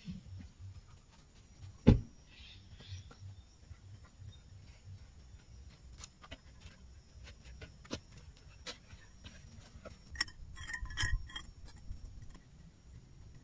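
Scattered small clicks and knocks of objects being handled, with one sharp thump about two seconds in and a brief burst of rattling clicks near the end.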